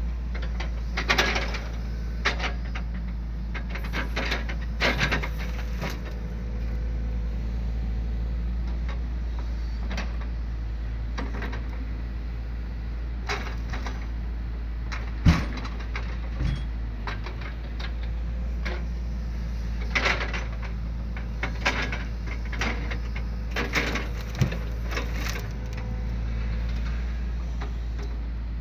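Hitachi excavator's diesel engine running steadily with a low drone while its log grapple works, with repeated knocks and clatters of logs and grapple striking one another and the truck bed; the loudest knock comes about halfway through.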